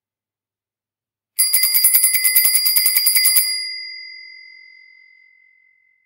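Bicycle bell rung in a fast, continuous trill for about two seconds, roughly ten strikes a second. Its high ringing tone then carries on and slowly fades away.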